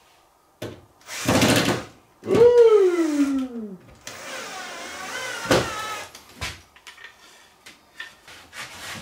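Cordless drill-driver driving drywall screws in short runs. One run falls in pitch as the motor slows, and there are a few clicks and knocks of handling in between.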